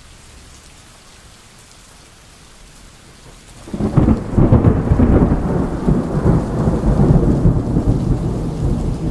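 Thunderstorm: a faint hiss of rain, then a loud low rumble of thunder about four seconds in that slowly dies away.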